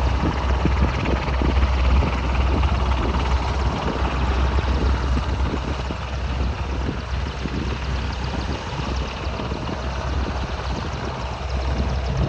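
AgustaWestland AW101 Merlin three-engine helicopter running, a steady rotor and turbine noise over a deep rumble, easing a little after a couple of seconds and building again near the end.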